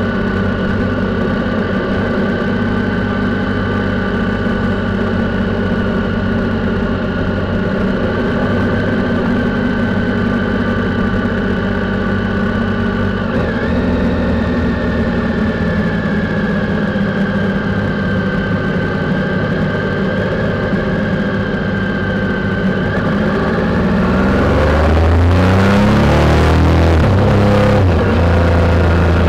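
Triumph Sprint's three-cylinder engine running steadily at a light cruise. Near the end it accelerates, rising in pitch over a few seconds and getting louder.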